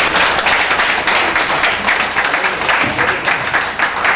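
Audience applauding: a dense, steady crowd clap.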